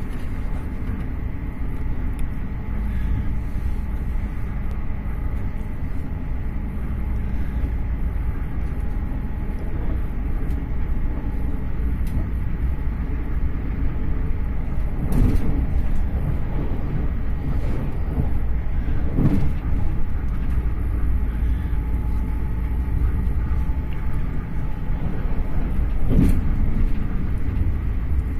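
Intercity passenger train running at speed, heard from inside the carriage: a steady low rumble of wheels on track, with a few brief louder knocks about halfway through and near the end.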